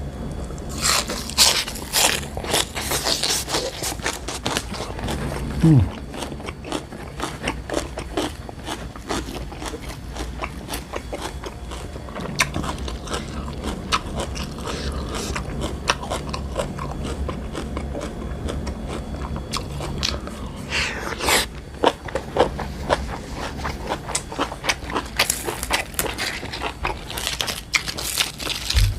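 Close-up chewing and crunching of food: bites of crisp raw vegetables and bamboo shoot, with dense crackling chews and louder crunchy bites near the start, about 21 seconds in, and near the end.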